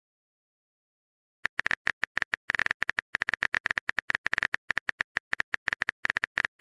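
Typing sound effect: a rapid, irregular run of short keyboard-like clicks, starting about a second and a half in, as a chat message is being typed.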